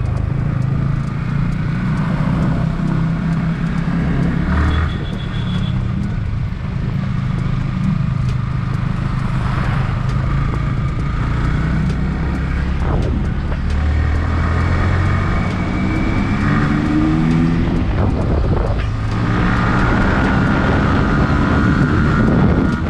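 Yamaha R15 V3's single-cylinder engine running as the motorcycle is ridden, its note rising and falling a few times with throttle and gear changes.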